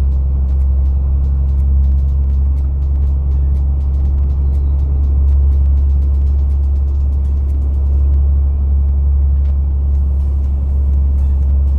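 Tanker semi-truck's diesel engine droning steadily, heard from inside the cab, with light clicks and rattles scattered throughout.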